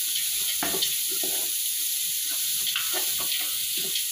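Chopped onion and garlic frying in achiote oil in a large metal pot, sizzling steadily while a wooden spoon stirs and scrapes through them in repeated strokes.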